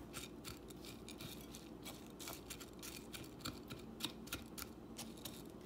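Silicone spatula stirring raw basmati rice with sliced onion and bell pepper in a glass baking dish: faint, irregular ticking and scraping of the dry grains against the glass.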